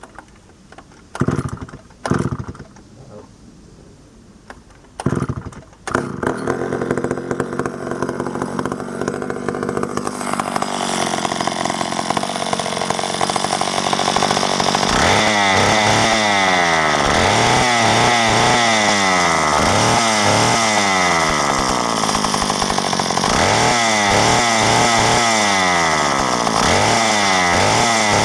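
Vintage Wizard Cat 16 chainsaw's two-stroke engine being started: a few short bursts as it fires, then it catches about six seconds in and runs. From about halfway it is revved up and down again and again.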